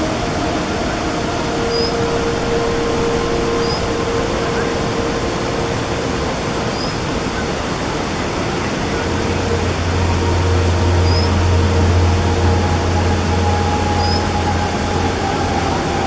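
Steady rush of fast-flowing water, with short high chirps every two to three seconds. A low hum comes in about nine seconds in and fades out near the end.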